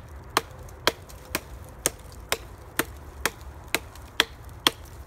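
Gerber StrongArm fixed-blade knife chopping into a log, the blade striking the wood in a steady rhythm of about two blows a second.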